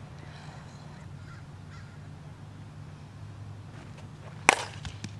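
A softball bat striking a softball once, a sharp crack about four and a half seconds in, followed by a few faint ticks.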